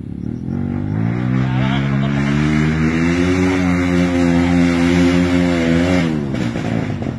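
Dirt bike engine revving: the pitch climbs over the first couple of seconds, holds high and steady for about three seconds, then drops back about six seconds in.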